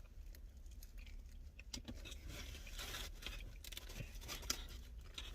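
Eating sounds: soft, irregular crackles and clicks of chewing and handling takeout food, with one sharper click about four and a half seconds in.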